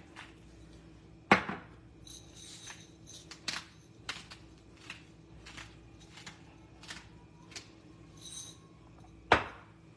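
Salt and pepper being put on a salad from tabletop dispensers: a quiet run of light ticks and soft rattles. Two sharp knocks stand out, one about a second in and one near the end.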